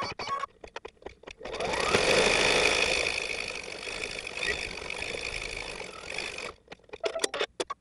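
Baby Lock Intuition embroidery machine stitching a running-stitch line, played back at triple speed. It starts with quick bursts of needle strokes, runs continuously for about five seconds after a short rising whine, then returns to rapid bursts of strokes near the end.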